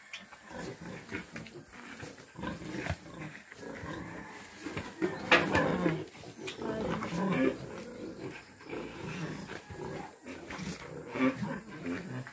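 Pigs grunting as a boar mounts and mates a sow in a pen, with scattered sharp knocks; the loudest burst comes about halfway through.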